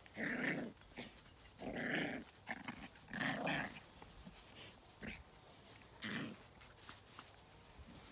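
Terrier puppy play-growling as it tugs at a garden hose: five growls over about six seconds, the first three longer and louder, the last two short.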